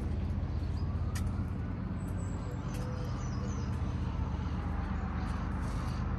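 Steady low hum of distant city traffic, with one vehicle heard rising and fading over a few seconds and a sharp click about a second in.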